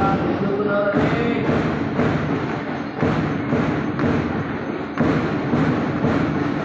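A drum keeps time for a march past in a steady marching beat: a heavy thump about once a second, with lighter beats between.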